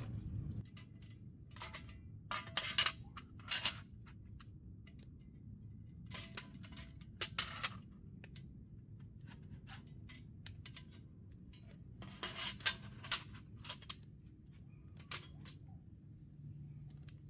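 Groups of light clicks and clinks from small hard objects being handled, coming in a few bursts several seconds apart, over a faint steady high tone.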